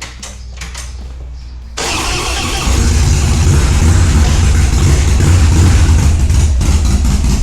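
Harley-Davidson Street Bob's V-twin engine starting up and running loudly. It comes in with a jump about two seconds in and steps up louder again a second later.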